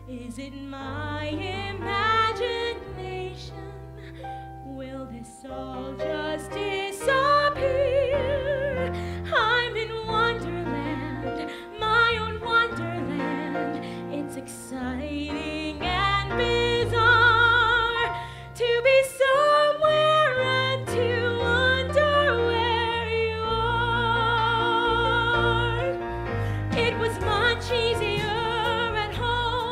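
A woman singing a stage-musical song with strong vibrato over an instrumental accompaniment with sustained bass notes.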